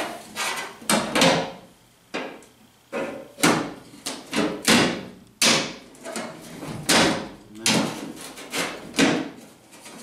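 Thin sheet-steel patch panel knocking and clacking against the steel body of a 1971 Chevy K5 Blazer as it is held up and shifted into place at the wheel arch. A string of irregular knocks, about one or two a second, each with a short metallic ring.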